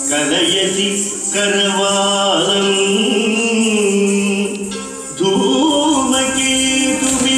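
Indian song with held singing over instruments. The music drops in level about four and a half seconds in, then comes back in full a little after five seconds.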